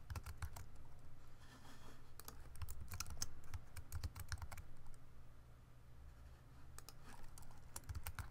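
Typing on a computer keyboard: several runs of quick key clicks, with a pause of about two seconds after the middle.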